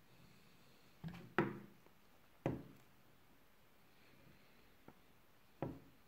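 A few short, sharp knocks and clicks of handling: a quick pair about a second in, the loudest of them, another a second later, a faint tick, and a last one near the end, over faint room tone.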